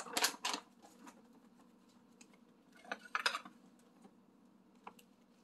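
Wooden spoon stirring a wet oat and banana batter in a baking dish, with short scrapes and knocks of the spoon against the dish at the start and again about three seconds in, and a single click near the end.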